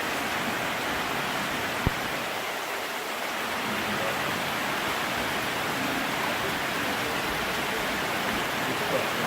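Heavy rain falling steadily, a dense even hiss, with a single sharp click a little under two seconds in.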